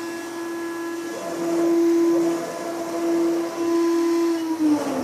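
SR-100 CNC sheet router's spindle running with a steady whine while it spots four shallow dots into a white plastic sheet, growing louder twice in the middle. Near the end the spindle winds down, its pitch falling.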